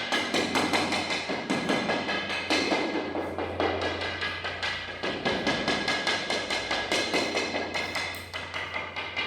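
Wooden stick tapping rapidly across floor ceramic tiles, about three to four knocks a second, to sort the solid-bedded tiles from hollow ones with an air gap beneath. A steady low hum runs underneath.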